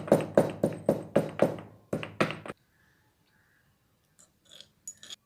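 Pestle pounding whole dry spices coarsely in a mortar: about ten quick thuds, roughly four a second, stopping about halfway through, then a few faint light clicks.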